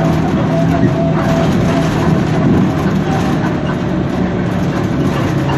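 Suzhou Higer KLQ6930G city bus running on the road, heard from inside the cabin: a steady engine hum under loud rumbling road and body noise. A thin whine dies away about a second and a half in.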